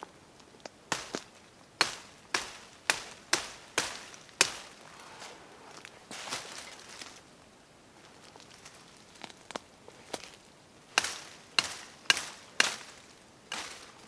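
A blade chopping into brush branches: a run of about eight sharp strikes roughly two a second, a quieter pause with a few light sounds, then five more strikes near the end.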